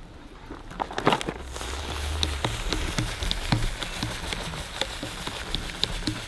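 Water pattering and splashing on a surface, with scattered crackles and a low rumble underneath.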